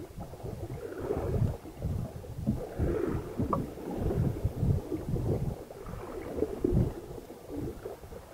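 Water rushing and splashing along the hull of a sailing yacht under way, with wind buffeting the microphone in irregular gusts.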